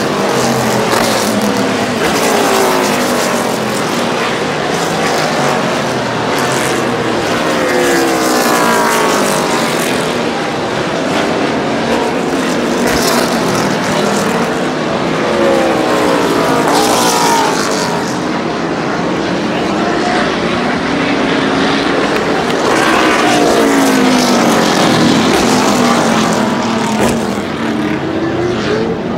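Several NASCAR stock cars' V8 engines running hard on the circuit, their pitch rising and falling as one car after another passes and works through the corners.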